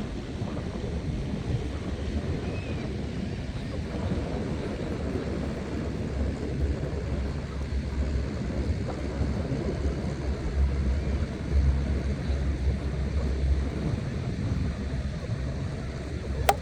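Wind buffeting the microphone: a steady, gusting low rumble, with one sharp click near the end.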